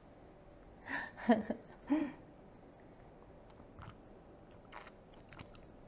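A few short murmured mouth sounds from a woman about a second in, then faint sips and small clicks as she drinks through a plastic straw from a young coconut.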